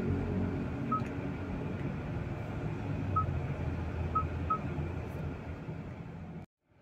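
Short touch-confirmation beeps from a Hyundai Stargazer's head-unit touchscreen as its menu buttons are pressed: four brief beeps of the same pitch, the last two in quick succession, over a low steady cabin hum. The sound cuts off abruptly to silence just before the end.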